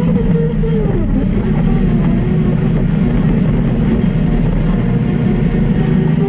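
Arctic Cat Wildcat XX side-by-side race UTV engine running hard, heard from inside the cab. The engine note drops about a second in, then holds steady.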